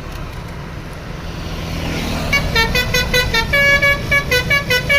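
A tour bus engine rumbles, then from a little over two seconds in the bus's basuri musical horn plays a quick tune of short notes, several a second, over the engine.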